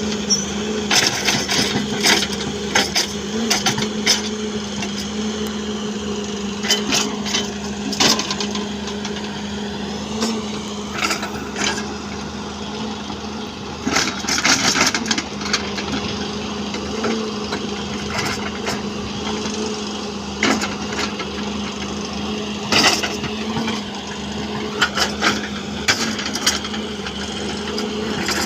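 A machine's motor running with a steady hum, with irregular knocks and clattering throughout.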